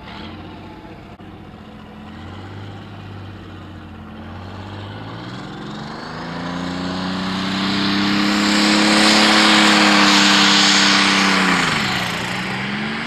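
Pro Stock pulling tractor's diesel engine running low, then revving up over a few seconds as it pulls the weight sled down the track, with loud exhaust noise at full power. Its revs drop sharply near the end and then climb again.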